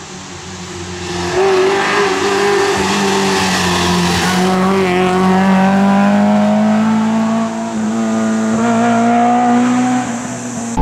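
Suzuki Swift rally car's engine at full throttle as the car drives past. The engine note fades in, then climbs steadily as it accelerates, with a brief dip about seven seconds in.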